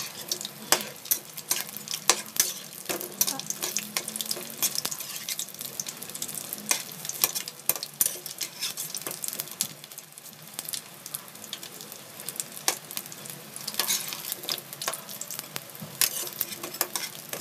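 Vegetable lumpia frying in hot oil in a metal wok: a steady sizzle full of sharp crackling pops, busier near the end. A spatula turns the rolls and scrapes against the wok.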